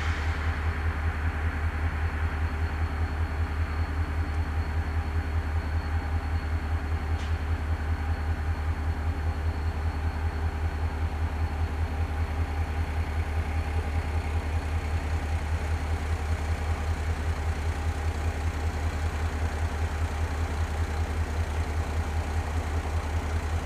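GM SD40-2W diesel-electric locomotive's 16-cylinder EMD 645 two-stroke diesel idling, a steady low throb that pulses at an even, rapid rate.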